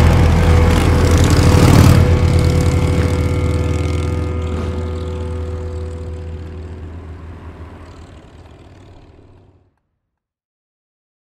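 A big touring motorcycle's engine running as it rides past, loudest about two seconds in, then fading away steadily to silence near the end.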